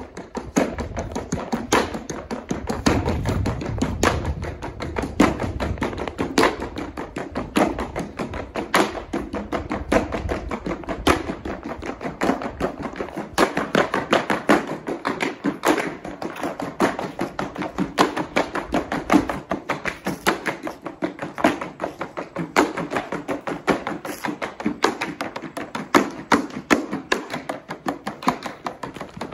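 Tap shoes striking portable wooden tap boards in quick, rhythmic footwork: a dense run of sharp clicks and taps with stronger accents.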